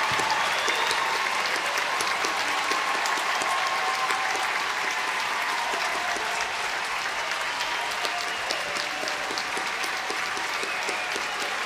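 Large theatre audience applauding, a dense steady clapping that slowly fades.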